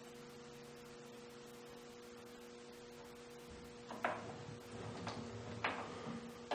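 Milling machine's steady low hum, then from about four seconds in a few sharp metallic clicks and knocks as the table and handwheel are worked by hand to touch the cutter off.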